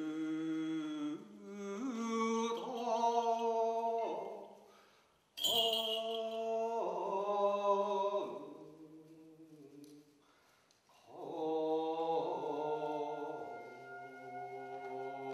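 A man's voice chanting in three long, slow phrases of held notes, each sliding up into its pitch, in a gagaku vocal style. A sharp strike opens the second phrase about five seconds in, and a faint high ringing tone sounds under the last phrase.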